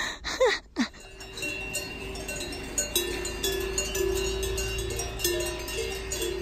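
Cowbells on grazing cows clanking and ringing continuously from about a second in, several bells at different pitches. A short voice sound comes just before.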